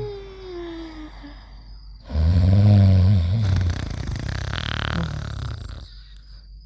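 Cartoon-style snoring in a repeating cycle. A whistling out-breath falls in pitch near the start; about two seconds in comes a loud, deep, rasping snore lasting about a second and a half, which trails off into a hissing breath.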